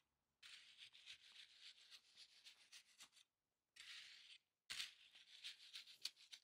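Faint gritty scraping of a metal garden rake being dragged through freshly poured wet concrete: one long stroke, a short one about halfway through, then another, with small clicks of the tines on stones.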